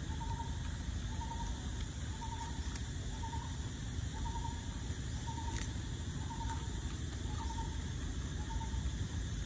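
Short trilled calls from an unseen animal, repeating about once a second, over a steady low background rumble, with a single sharp click about halfway through.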